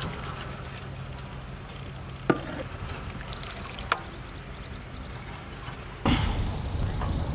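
A metal spoon stirs and lifts thick chicken curry in a metal tray, clinking sharply against the tray twice, over a steady low hum. About six seconds in, a louder rushing background noise comes in.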